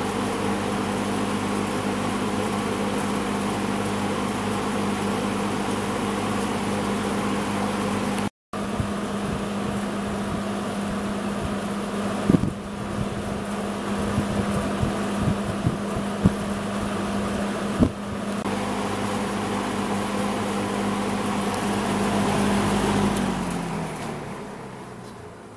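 1972 Lakewood S-23 20-inch box fan running with a steady motor hum over a rush of air, with a few sharp clicks midway. Near the end its hum falls in pitch and fades as the fan winds down.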